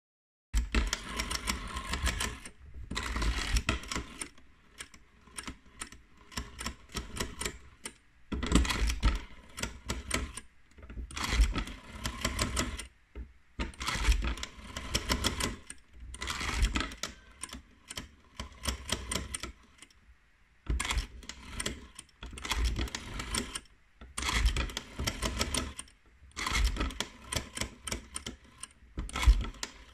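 North Electric (Galion) rotary telephone being dialed over and over: the dial is wound round and let go, and each return sounds as a run of rapid clicks, with short pauses between the dialings.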